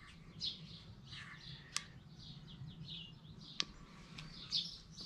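Birds chirping faintly and repeatedly in the background, with a low hum under them. Two sharp clicks stand out, one under two seconds in and one between three and four seconds in.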